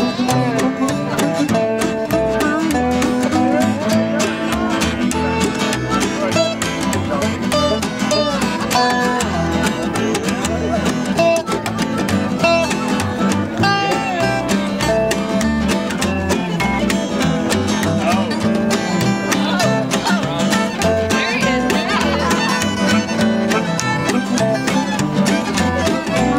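Acoustic bluegrass band playing a tune: a dobro resonator guitar played with a steel bar, its notes sliding, over strummed acoustic guitars and a steady upright bass pulse.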